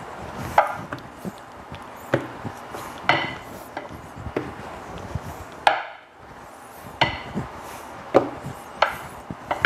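Rolling pin working a sheet of dough back and forth on a floured countertop: a rubbing roll with sharp knocks, roughly one a second, as the pin is set down and pushed. It falls briefly quiet a little past halfway.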